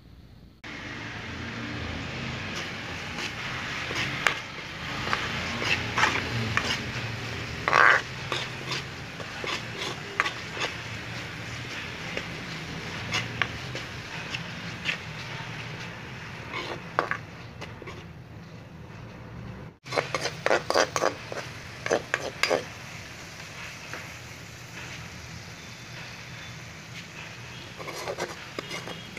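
Onion-tomato masala sizzling in hot oil in a metal pan while a spatula stirs it, scraping and clicking against the pan again and again.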